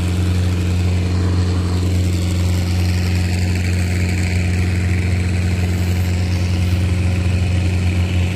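Kato crawler excavator's diesel engine running steadily with an even low hum, no revving.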